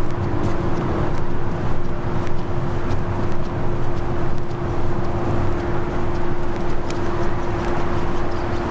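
Steady running hum of an engine or motor: one constant tone over a low rumble, with a few faint ticks.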